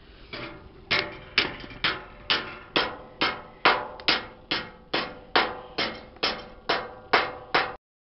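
Evenly spaced sharp hits, about two a second, each with a short metallic ring, cutting off abruptly near the end.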